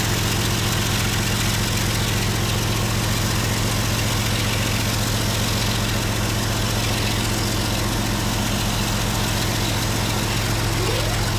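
Diesel freight locomotive engine running steadily, a constant low hum with a noisy rumble over it.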